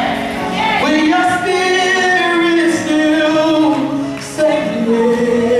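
Church praise team of women singing through microphones, a lead voice holding long notes over the group, with a brief break a little after four seconds.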